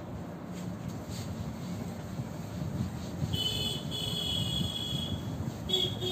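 Cloth wiping marker off a whiteboard: a steady rubbing, with high squeaks from the cloth about three seconds in and again briefly near the end.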